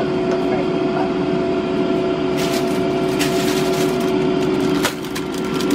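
Steady hum of a kitchen appliance's electric fan motor, holding one constant mid-pitched tone. A few light clicks and rattles come in about two and a half seconds in.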